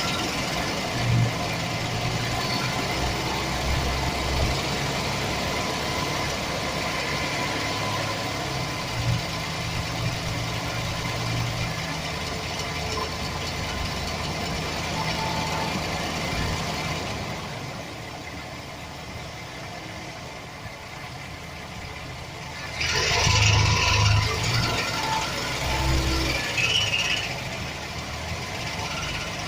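2007 Chevrolet Express van's 4.3-litre V6 engine running, with a rattle that the owner puts down to a bad starter motor gear bumping against the flexplate. The sound drops quieter for a few seconds past the middle, then comes back louder for a few seconds near the end.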